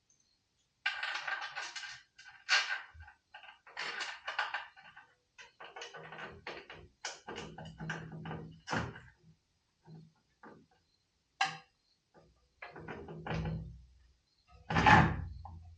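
Irregular clatter, scraping and knocks of bolts, washers and a tool holder being handled and tried against a tool box, with the loudest knock near the end.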